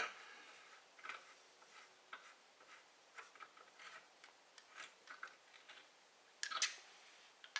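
Faint, irregular small clicks and light taps, about one a second, with a louder click about six and a half seconds in.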